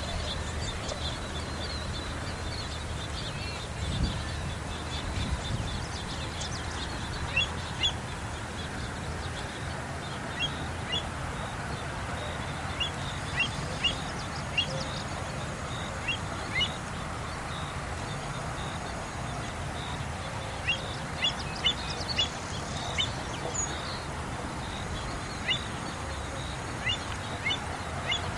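American avocets calling: repeated short, sharp high notes, scattered and often in quick runs, over a steady background hiss.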